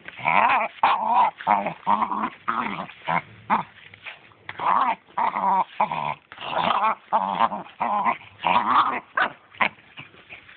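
Small dog growling in quick repeated bouts, pitched and wavering, while it bites and pushes at a football.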